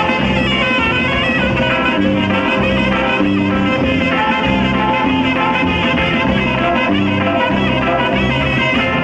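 A live dance band playing, a saxophone section carrying the tune in repeated held phrases over bass, guitar and drums.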